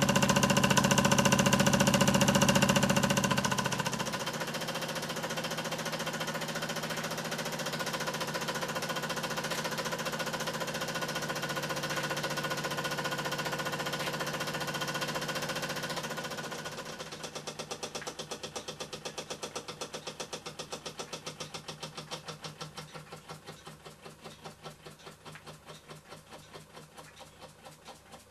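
Wylie Harris toy steam engine running in steam with a fast, steady mechanical beat. From about two-thirds of the way through, the beat becomes separate pulses, about three a second, that grow fainter toward the end.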